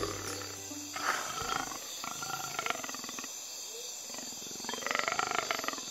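Leopard growling in three bouts, the longest about two seconds in and the loudest near the end.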